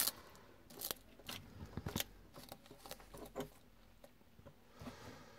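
Bearded dragon chewing a locust: irregular small crunches and clicks, several spread across a few seconds.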